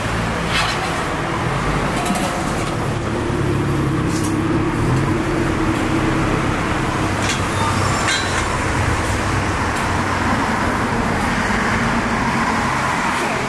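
Steady rumble of road traffic, with a few light metallic clinks of steel tongs against stainless bowls.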